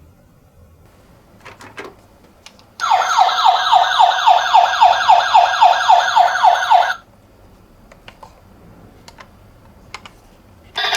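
Toy ambulance's electronic siren sounding for about four seconds: a fast warble of quickly repeating falling sweeps, about five a second, which cuts off sharply. A few faint clicks come before and after it, and the siren starts again right at the end.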